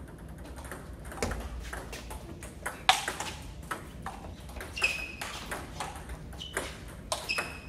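Table tennis rally: the celluloid ball clicks sharply against the paddles and bounces on the table in a quick irregular run of hits. Two brief high squeaks are also heard, one about halfway through and one near the end.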